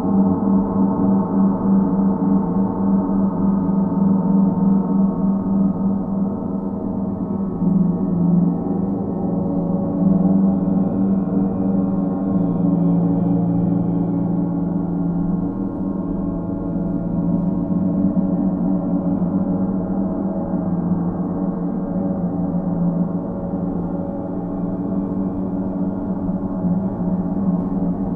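Paiste planetary gongs ringing in a dense, sustained wash of overlapping low tones, swelling again about eight and ten seconds in.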